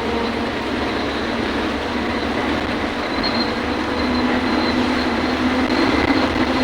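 Heavy rain: a loud, steady rushing noise that grows slightly louder about four seconds in.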